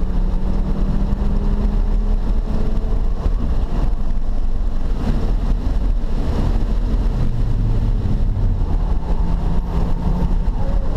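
Car engine running at a fairly steady pitch under way, mixed with a constant rumble of tyre and wind noise, heard from inside the cabin.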